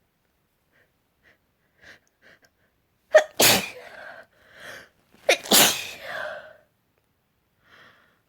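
A woman sneezing twice, loud and sharp, about two seconds apart. Each sneeze has a quick catch just before it and a softer breathy trail after it, and faint build-up breaths come before the first.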